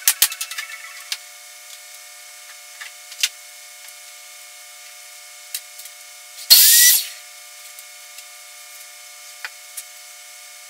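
Workshop tool sounds: a quick run of clicks at the start and a few scattered taps, then about six and a half seconds in a loud half-second hissing burst with a short rising whistle.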